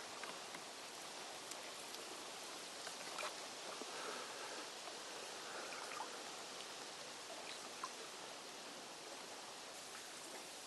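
Steady rain falling, with a few faint scattered ticks of drops striking close by.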